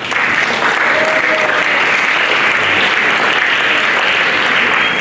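Audience applauding, starting at once and holding steady.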